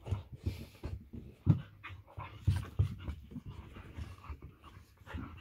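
Two dogs play-wrestling: panting with short, irregular low sounds from their scuffling mouths and bodies, the strongest about a second and a half in.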